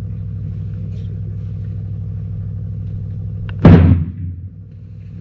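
An engine running steadily at idle, a low even hum. About two-thirds of the way in, one loud sudden rumbling thump cuts across it, and the hum then drops away.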